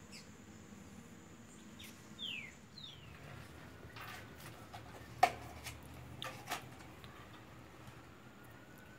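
A few short falling bird chirps, then a handful of sharp clicks and knocks from a wire-hung root-ball fern being hung on a wall hook, the loudest about five seconds in. A faint siren starts to rise near the end.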